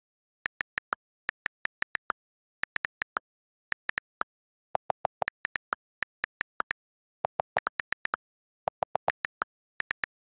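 iPhone on-screen keyboard clicks from typing a text message: quick runs of short, crisp ticks with silence between them. A few groups of clicks, about five and eight seconds in, are lower-pitched than the rest.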